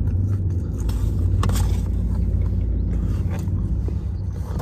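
Steady low rumble of a car idling, heard inside the cabin, with chewing and a few small clicks and rustles from handling a cardboard fry box.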